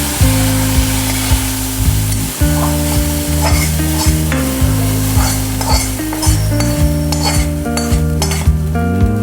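Food frying and sizzling in a pan while it is stirred, over background music with a steady beat and a low melody.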